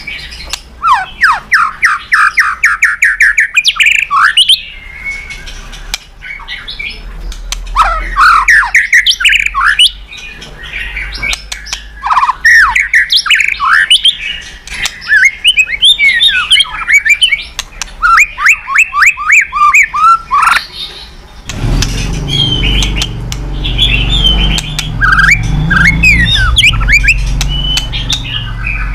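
White-rumped shama singing a loud, varied song of rapid runs of repeated notes, sweeping whistles and chatters. A low hum comes in underneath about two-thirds of the way through.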